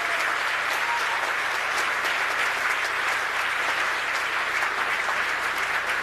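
Crowd applauding steadily, a dense wash of many hands clapping.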